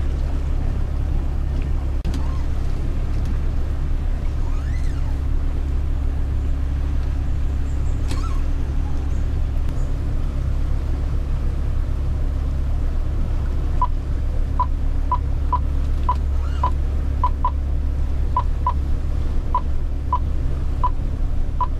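Boat engine running steadily, a low, even rumble heard from inside the pilothouse cabin. From about halfway through, a string of short high beeps comes in, one or two a second.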